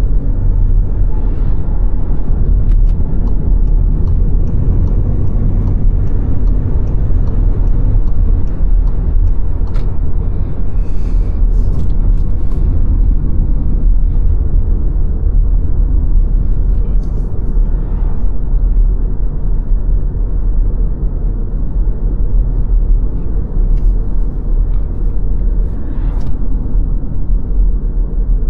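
Car driving along a road: a steady low rumble of tyre and engine noise, with a few faint clicks.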